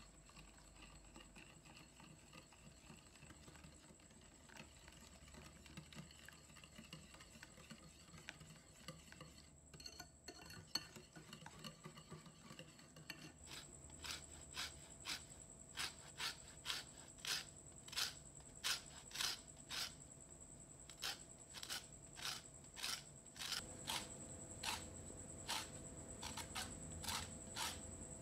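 A wire whisk stirring batter in a glass bowl, faint. From about halfway, a lemon is rubbed against a flat metal hand grater in regular strokes, about two a second, rasping off the zest.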